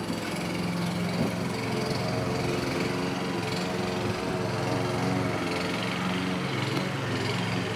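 Lawnmower engine running steadily at a constant pitch.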